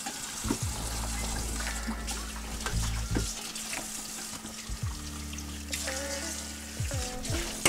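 Steady rush of water under lofi background music with held low notes and bass.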